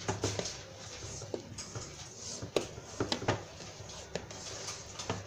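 Spatula scraping and knocking against a stainless-steel mixing bowl while folding flour into orange-cake batter by hand, in irregular strokes with a few sharper clicks.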